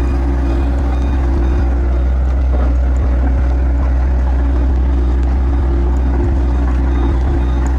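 Heavy diesel engine of road construction machinery running steadily, a constant low hum with no change in speed.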